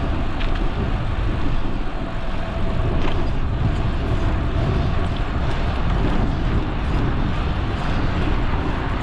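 Wind rushing over the microphone of a moving bicycle, a loud, steady rumble.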